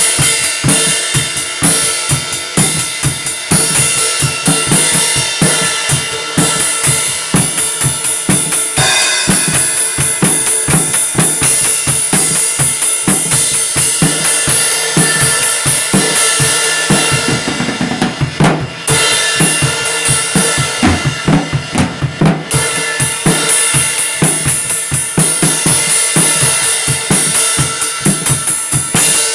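Drum kit playing a fast, steady beat with cymbals ringing over it; the cymbals drop out for a couple of seconds about seventeen seconds in, then the full beat resumes.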